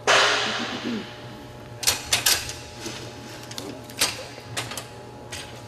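A sudden loud rush of noise that fades over about a second, then scattered sharp clicks and knocks: a quick run about two seconds in, another around four seconds and a couple near the end. This is handling clatter around a goat held in a metal restraint cradle.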